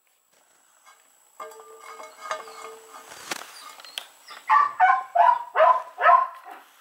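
Young puppy making a steady high whine for a second or two, then a couple of sharp clicks, then five quick high yips in a row near the end.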